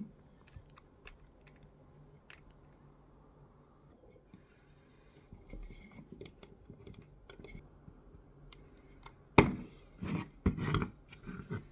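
Small screws and a 3D-printed plastic part being handled and worked by hand: faint scattered clicks for most of the time, then a sharp click about nine seconds in and several knocks after it.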